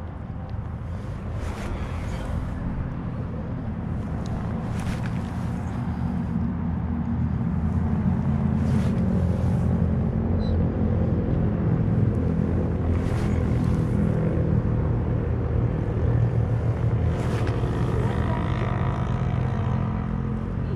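An engine droning steadily, growing louder over several seconds, holding, then easing off near the end, like a motor passing at a distance. A few brief sharp sounds come every few seconds over it.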